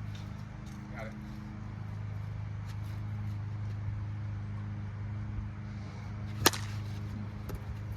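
A single sharp crack about six and a half seconds in, typical of a plastic Wiffle ball bat hitting the hollow plastic ball, over a steady low hum.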